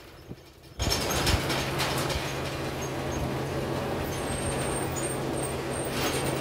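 Inside a moving city transit bus: steady engine drone and road noise, after a short quieter moment at the very start. A faint high whine comes in about two-thirds of the way through.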